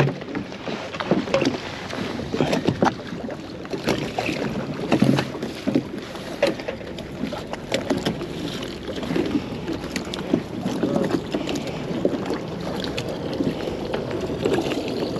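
Choppy water slapping and lapping against a kayak's hull, with wind on the microphone and irregular knocks of gear being handled on the kayak.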